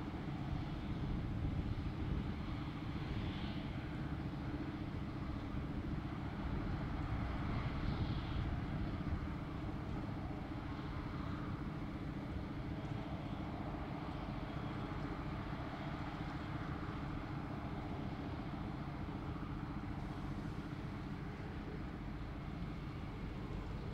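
Claas Jaguar 950 forage harvester and the tractor alongside it running under load as the harvester picks up grass and blows it into the trailer: a steady, deep machinery drone that swells slightly a couple of times.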